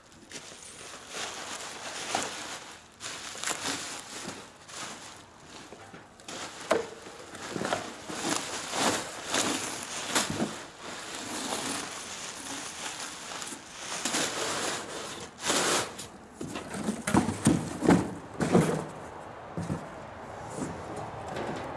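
Bubble wrap crinkling and rustling and cardboard scraping as a new aluminum radiator is unpacked from its box, with a few dull knocks near the end as the radiator is stood on the box.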